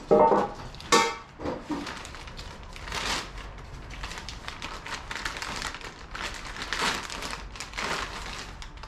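Clear plastic bag crinkling and rustling as it is handled and opened to get at the kit's hardware, with two sharper, louder clatters in the first second.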